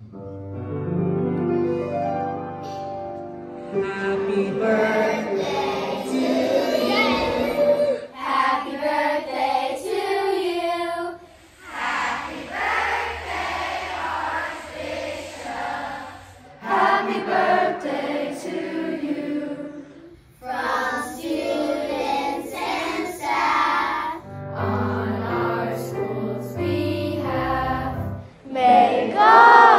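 Groups of school children singing together, in short clips from different groups that cut abruptly from one to the next every few seconds.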